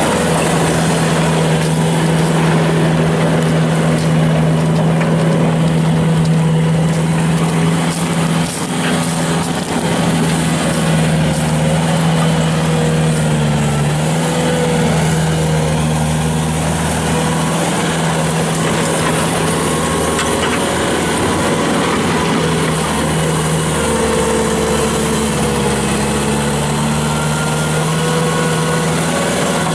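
Bobcat T300 skid steer's Kubota turbo diesel engine running steadily, with its pitch dipping briefly a couple of times and rising a little later on.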